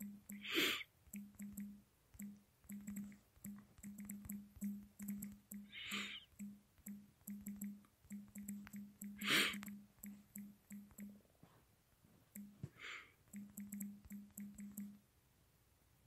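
Faint computer keyboard typing and clicking, with a low hum that keeps cutting in and out and a few short hisses.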